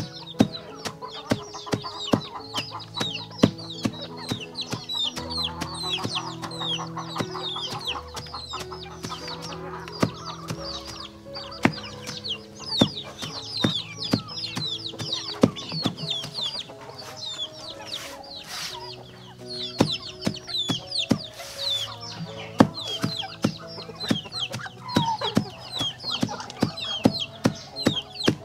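A flock of chicks peeping continuously: many short, high, falling cheeps over one another, with sharp clicks scattered throughout. Background music with held notes plays underneath.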